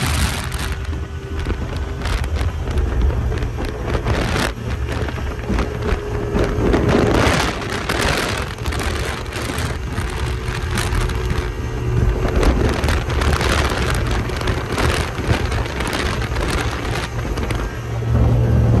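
Performance boat under way at speed: a steady low engine drone with wind and water rushing past in uneven gusts.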